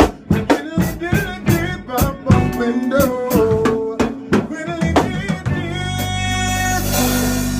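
Band music: drum kit hits several times a second under a bending melody line, which stops about five and a half seconds in on a long held final chord with a cymbal wash.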